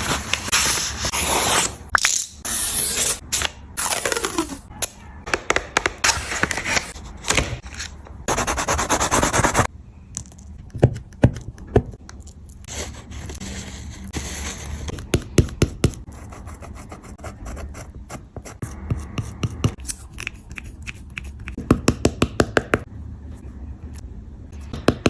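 Oil pastels rubbing and scraping on paper. Loud, dense back-and-forth strokes for the first ten seconds or so, then quieter work with runs of short, sharp scratching strokes.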